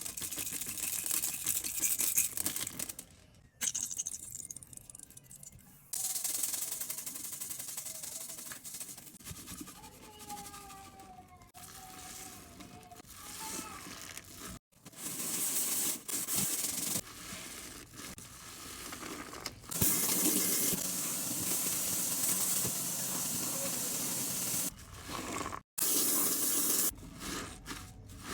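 Cleaning liquids and water pouring, splashing and fizzing with a hiss in a kitchen sink, in several short stretches that cut off abruptly.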